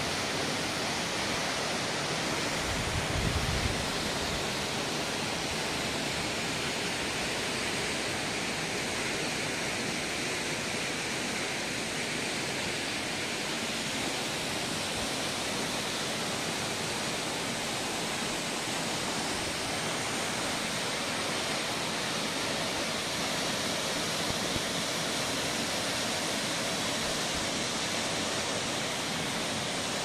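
Waterfall with a steady, even rush of falling water, and a brief low rumble about three seconds in.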